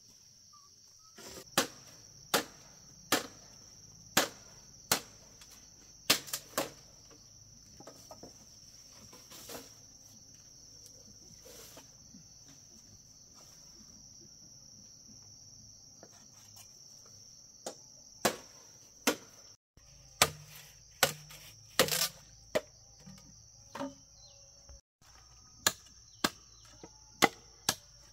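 A steady high-pitched insect drone, with sharp single knocks of a hand tool striking at irregular intervals, roughly one a second, pausing for several seconds in the middle.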